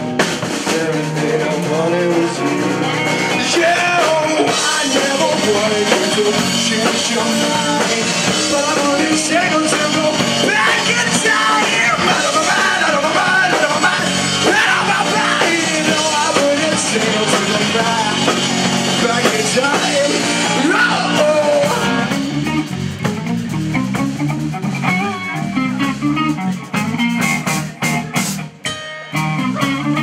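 Live rock band playing electric guitars, bass guitar and drums, with a man singing over them. About two-thirds of the way through the mix thins out to a sparser, bass-heavy riff, with a brief drop-out shortly before the end.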